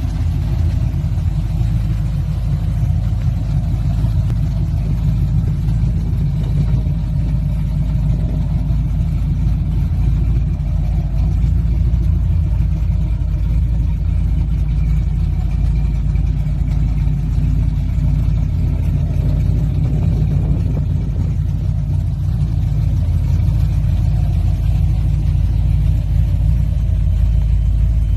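Custom 1985 Chevrolet C10 pickup's engine idling: a steady low rumble.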